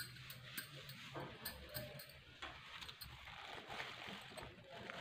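Faint handling sounds of hands patting a ball of naan dough on a marble counter, with a few light clicks as a kitchen knife is picked up and set to the dough.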